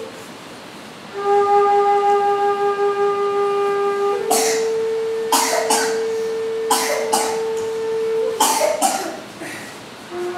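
Large side-blown bamboo flute (bansuri) playing long held notes: a lower note begins about a second in, then a slightly higher note is held for about four seconds before fading near the end. Short breathy puffs of air cut in several times over the second half.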